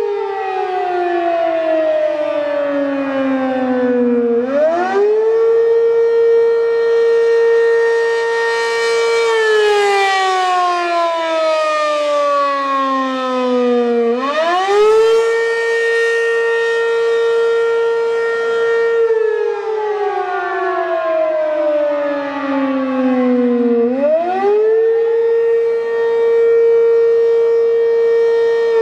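ACA P-15 single-tone rotating warning siren sounding an attack signal. Its tone holds steady, winds down over about four seconds, then climbs back to full pitch in about a second. The cycle repeats three times.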